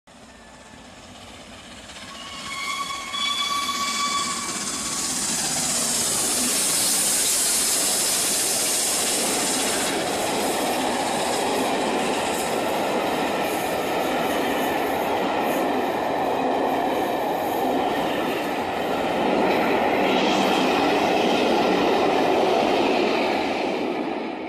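A train passing at speed. The sound builds over the first few seconds and a brief high note sounds about two to four seconds in. Then comes the steady rush and rattle of wheels and carriages, which fades out at the end.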